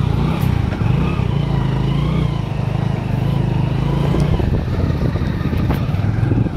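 Motor scooter engine running steadily while riding.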